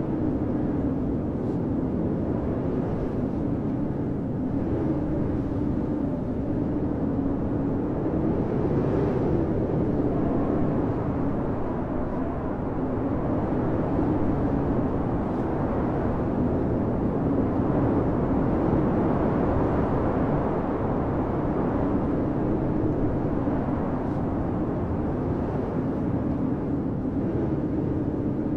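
Strong blizzard wind blowing in a steady rush, with a low tone that wavers in pitch and gusts that swell and ease.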